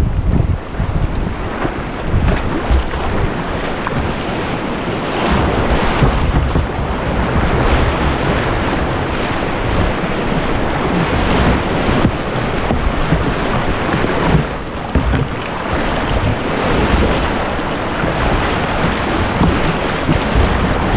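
Whitewater rapids rushing and splashing around a kayak, with heavy low wind and water rumble on the camera microphone.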